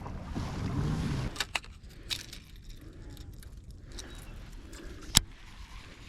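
A few sharp clicks and knocks of fishing gear being handled on a kayak, with one louder knock about five seconds in.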